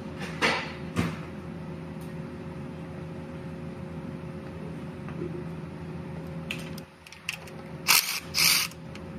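Hand tools clicking and clinking against metal during a starter replacement, with two short loud bursts of noise near the end, over a steady low hum.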